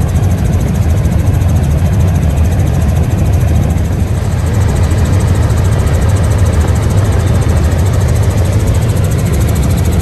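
Helicopter in cruise flight heard from inside its cabin: a loud, steady drone of the engine and rotor, heaviest in the low end.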